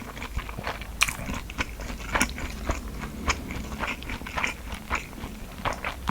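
Close-up mouth sounds of someone chewing and biting convenience-store rice food such as gimbap: a quick, irregular run of short clicks, several a second, with a couple of louder snaps about one and two seconds in.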